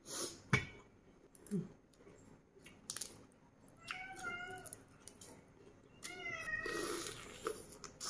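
Pet cat meowing twice, about four and six seconds in, the second call a little longer, asking for food while a person eats.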